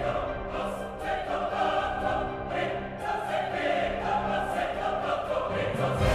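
Background music: a choir singing over orchestral accompaniment.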